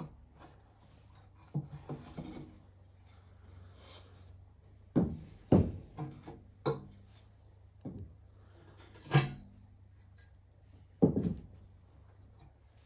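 Firebricks being lifted out of a woodburning stove's firebox: a series of irregular knocks and short scrapes as the bricks bump and slide against the stove, the loudest knocks about five, nine and eleven seconds in.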